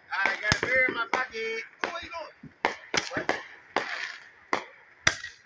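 Fireworks going off: about a dozen sharp bangs and pops, irregularly spaced.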